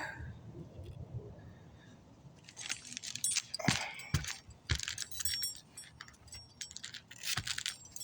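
Small metal objects jingling and clinking irregularly, starting about two and a half seconds in.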